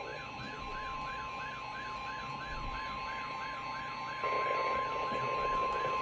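Weather radios sounding an alert: a steady 1050 Hz NOAA Weather Radio alert tone under a warbling alarm that rises and falls about three times a second. About four seconds in, the tone gets louder and radio static joins it.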